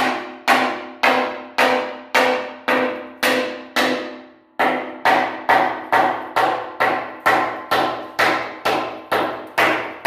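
Hand hammer striking a rusty steel channel from an old hoist, knocking off scale and rust. The blows fall in a steady rhythm of about two a second, with a short pause a little after four seconds in. Each blow leaves the steel ringing.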